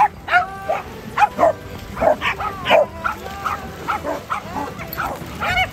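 Dog barking and yelping in a rapid run of short, high calls, about three a second.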